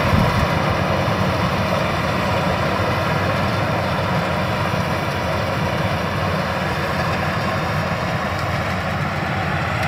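Rice combine harvester's engine running steadily.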